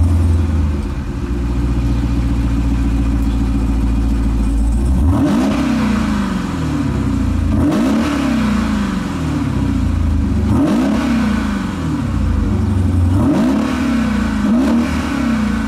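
2021 Dodge Durango SRT Hellcat's supercharged 6.2-litre Hemi V8 exhaust with the SUV standing still. It idles steadily for about five seconds, then is revved about five times, each rev climbing and falling back to idle.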